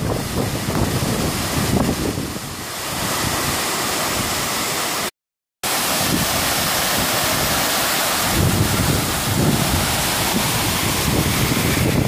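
Steady rush of a waterfall plunging into a pool, with wind buffeting the microphone in low gusts. The sound cuts out completely for about half a second about five seconds in.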